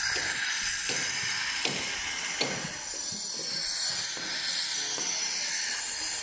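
A steady hiss of background noise with a few faint, short knocks or clicks in the first half.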